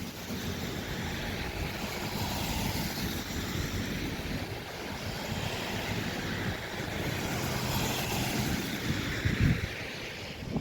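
Road traffic passing on the highway, a steady rush of tyres and engines that swells and fades, with wind buffeting the microphone.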